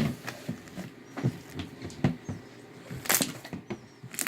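Hands squishing and poking a soft homemade slime made with glue and foam hand soap: irregular wet clicks and small pops, a sharp one at the start and another loud one about three seconds in.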